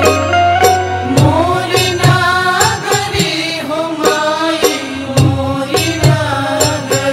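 Music of a Bhojpuri devi pachra devotional folk song: a melody that bends in pitch, over a low sustained bass and a regular drum beat.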